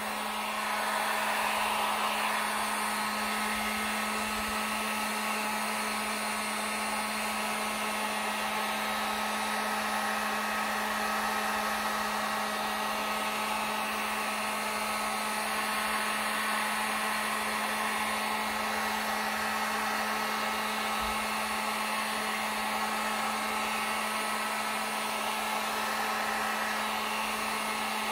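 Electric heat gun blowing steadily: a constant rush of air over a steady low motor hum.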